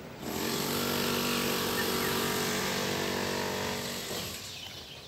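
A small petrol engine running steadily at one speed, coming in sharply just after the start and fading away near the end.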